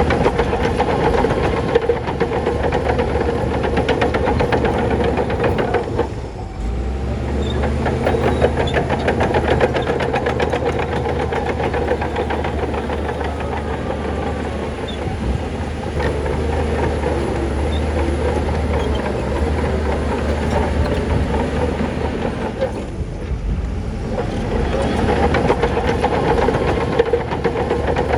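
Heavy diesel earthmoving machinery running steadily with a fine clatter. A deeper, stronger engine rumble comes in about six seconds in and eases off around twenty-two seconds.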